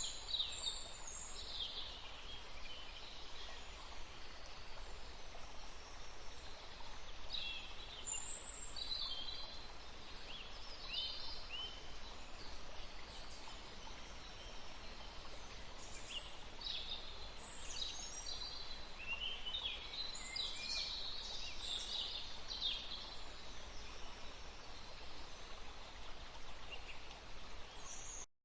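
Several small birds chirping and trilling in short, scattered bursts over a steady background hiss of outdoor ambience, cutting off abruptly just before the end.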